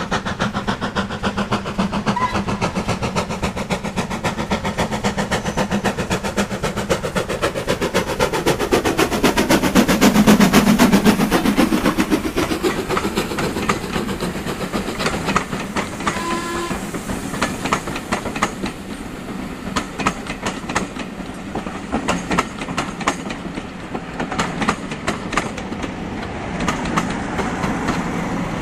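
Steam locomotive working hard, its rapid, even exhaust beats growing louder as it approaches and passes about ten seconds in, the pitch dropping as it goes by. The coaches then roll past with wheels clicking over the rail joints, and near the end the Class 47 diesel locomotive at the rear of the train comes up.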